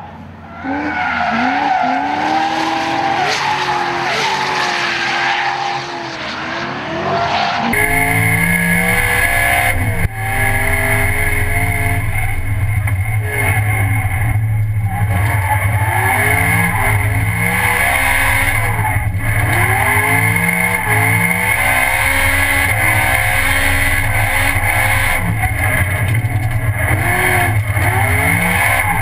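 Supercharged BMW E92 M3 V8 drift car revving up and down while sliding sideways, with tyre squeal. About eight seconds in the sound cuts to inside the car's cabin, where the rising and falling revs sit over a steady loud drone.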